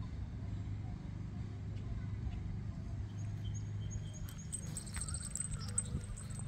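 A steady low engine drone, with faint bird chirps about three to five seconds in.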